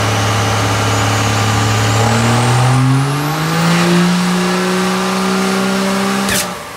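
First-generation Dodge Ram diesel pickup running hard on a chassis dyno, its engine speed climbing with a rising high turbo whine. About six seconds in comes a single sharp bang as the turbocharger's compressor wheel bursts, and the engine falls back to a lower, steady speed.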